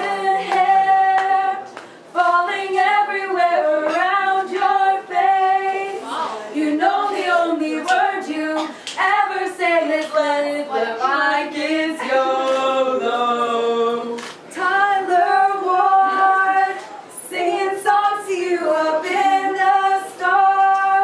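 A group of teenage girls singing a song together without accompaniment, in held notes with short breaks between lines.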